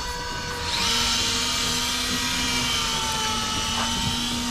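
Electric fishing reel motor whirring steadily as it winds in line, starting about a second in, over a steady low mechanical hum.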